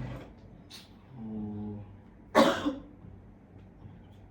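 A woman's forced, staged cough, one loud harsh cough about two and a half seconds in, faked to look like coughing up blood. A short burst comes right at the start and a drawn-out 'oh' comes before the cough.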